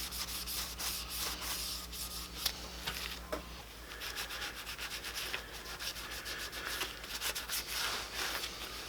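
Hand rubbing on the wooden tabletop: rapid back-and-forth hissing strokes throughout.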